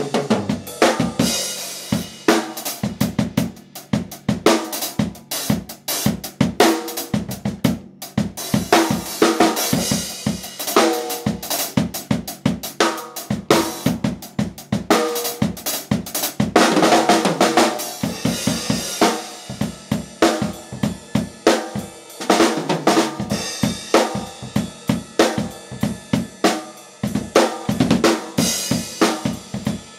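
A drum kit played in fast, dense strokes, with snare, bass drum and cymbals mixed in.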